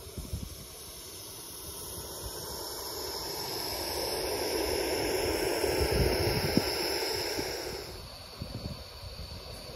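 Gauge 1 live-steam model locomotive passing close by: a hiss of steam that builds over a few seconds, peaks about six seconds in and fades away, with wind buffeting the microphone.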